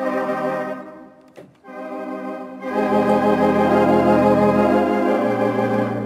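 Barton theatre pipe organ sounding a held chord that fades, a click, then a louder held chord with deep pedal bass notes underneath, the bass shifting near the end. The organist is trying out a stop combination loaded from a stored combination file.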